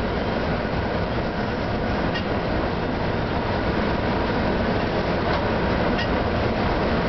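Steady running noise of an FS E655 electric locomotive under way, heard from inside its cab: a constant rumble of wheels on rail and the locomotive's machinery, with a few faint clicks.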